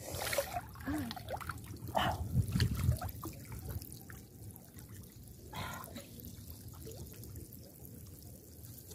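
Shallow water splashing and trickling in small irregular bursts as hands grope through a flooded field for fish, busiest in the first few seconds.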